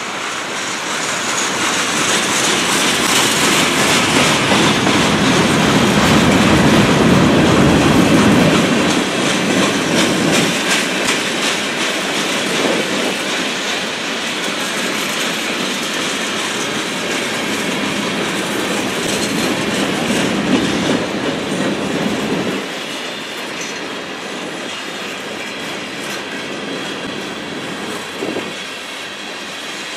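Freight cars of a passing CN manifest train rolling by: a steady rumble and clatter of steel wheels on the rails, loudest about six to eight seconds in, with a heavier low rumble again around twenty seconds in.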